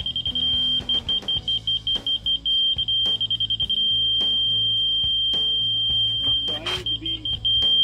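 Laser level receiver on a grade rod beeping: one high tone pulsing in runs of quick beeps, then held as a long unbroken tone for a few seconds, then beeping again and ending on a solid tone. The quick beeps mean the receiver is just off the laser beam, and the solid tone means it sits on the beam, on grade.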